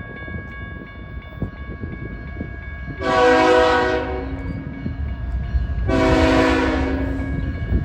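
Locomotive air horn sounding two blasts, the first about a second long and the second longer, near the end. A train's low rumble and wheel clicks run underneath.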